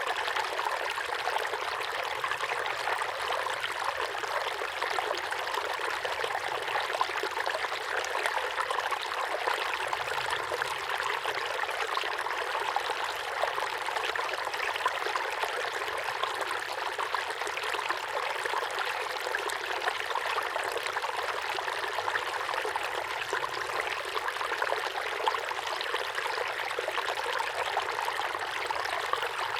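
A small waterfall pouring steadily into a pond: continuous splashing and trickling water with many small droplet splashes.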